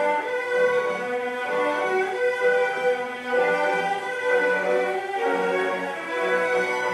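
Instrumental background music with bowed strings and sustained notes, heard through a television's speaker.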